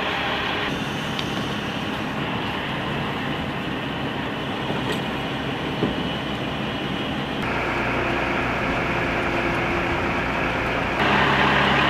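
A mobile crane's diesel engine running steadily under a lift: a low, even engine hum with a noisy wash over it, changing abruptly twice, past the middle and near the end.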